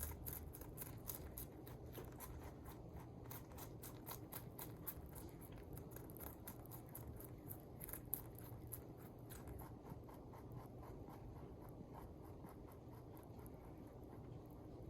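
Rabbit gently grinding her teeth ('tooth purring'): faint, quick clicking at about four clicks a second, thinning out after about ten seconds. Soft grinding like this is the sign of a happy, contented rabbit.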